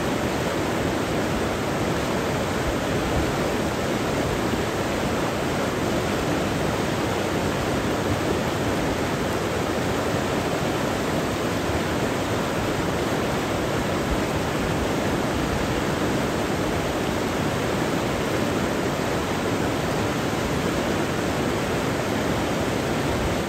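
Big whitewater river rapids churning: a steady, unbroken rush of water.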